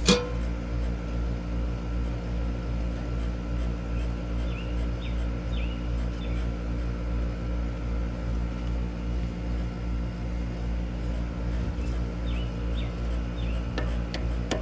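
A steady low mechanical hum, with a sharp click at the very start and a few short high chirps in the middle and again near the end.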